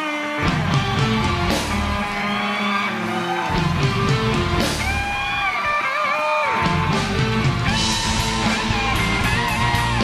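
Live rock band playing an instrumental break, led by an electric guitar playing held lead notes with pitch bends over a bass and drum backing.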